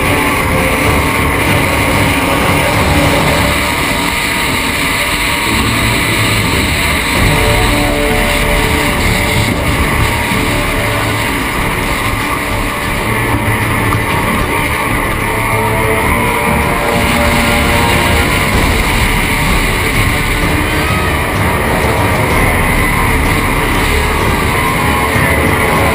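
Rock music with electric guitar, laid over the steady engine and water noise of a racing powerboat.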